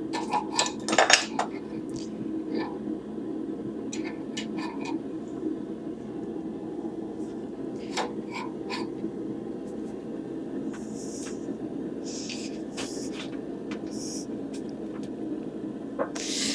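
Steel tools clinking and clanking against a hot stainless steel bar as it is twisted, over a steady forge hum. A few short hisses come near the end.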